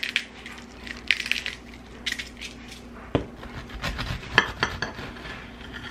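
Badia black pepper grinder twisted, giving about three short gritty grinding bursts; then a bread knife sawing through a toasted-bread sandwich, with sharp knocks and scrapes against a ceramic plate from about three seconds in.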